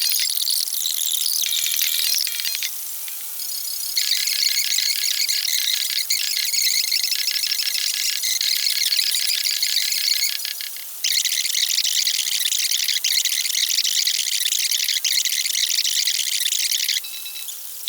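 Dense, high-pitched chorus of night insects chirping in fast pulses, with a faint steady hum underneath. The chorus cuts out sharply about three seconds in and returns a second later, then dips briefly around eleven seconds and again near the end.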